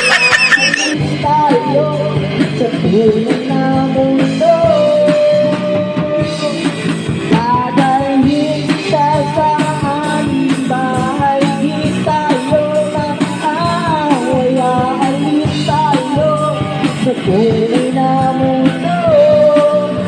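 A rock band playing live: drum kit and guitars, with a wavering lead melody on top. The drum beat becomes steady and prominent about six seconds in.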